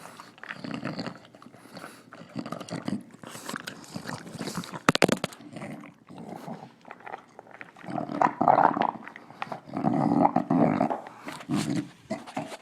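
English Bulldog snorting and snarling as she eats, in irregular noisy snorts and grunts, louder about eight and ten seconds in. A quick run of sharp clicks about five seconds in is the loudest moment, typical of teeth or kibble against the bowl.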